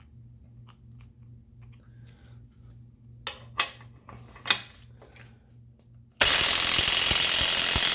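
A few clicks and knocks as the tool is set on the nut, then an impact wrench hammering for nearly two seconds on the nut of a bolt-and-pipe puller, turning out a seized threaded bottom bracket cup; this burst is what breaks the cup free. A low steady hum runs underneath.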